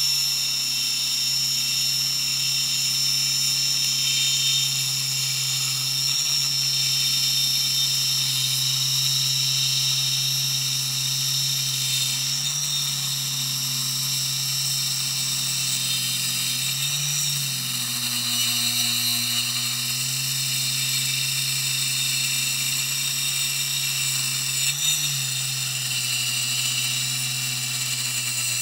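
Ryobi circular saw running continuously as it rips a 2x12 board lengthwise along the grain, a steady whine that dips briefly in pitch a few times.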